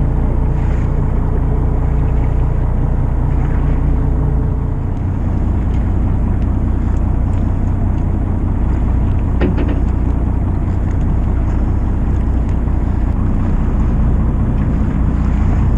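Fishing boat's engine running with a steady low drone, with a few light clicks near the middle.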